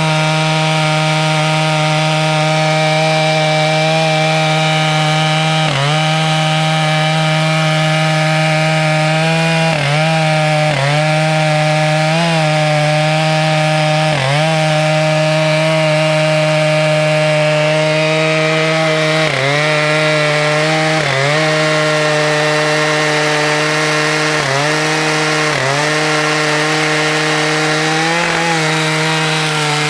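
Two-stroke chainsaw in a chainsaw mill, running at steady high revs under load as it rips lengthwise through a red oak log. The pitch dips briefly and recovers every second or few as the cut loads the engine.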